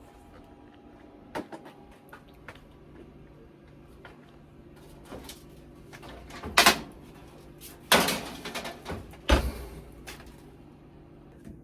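Oven door and baking pan being handled: a few scattered knocks, then a run of louder clanks and bangs in the second half as the pan goes in and the door is shut.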